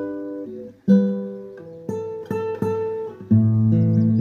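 Background music: acoustic guitar playing plucked notes and strummed chords, each note ringing and dying away, with a fuller chord sounding about three seconds in.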